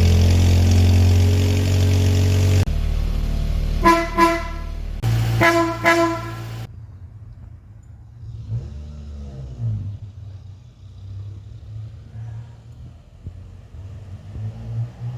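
1982 Volkswagen Voyage LS: the engine running loudly, then two short toots of the car's horn, about four and five and a half seconds in. After that only a faint low rumble remains.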